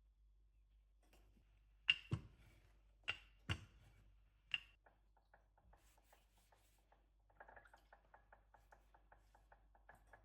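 A few sharp knocks of hard objects, the louder ones with a short ring, followed by a fainter, quick, even tapping of about five strokes a second.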